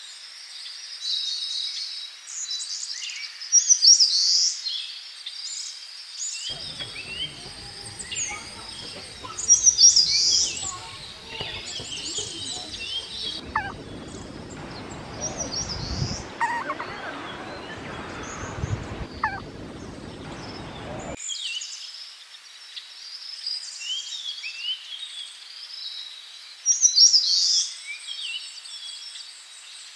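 Small songbirds chirping and trilling in quick, high-pitched phrases, with a few louder calls standing out. Through the middle stretch a low outdoor rumble and hiss runs beneath the birdsong.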